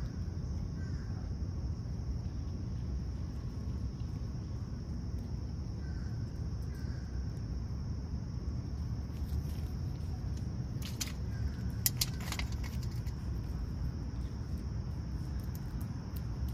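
Steady high-pitched insect chorus over a low outdoor rumble, with a quick cluster of sharp clicks about eleven to twelve seconds in.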